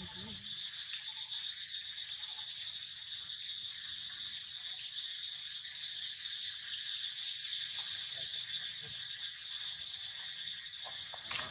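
Steady high-pitched drone of insects calling, swelling and pulsing rapidly in the middle. A single sharp click sounds just before the end.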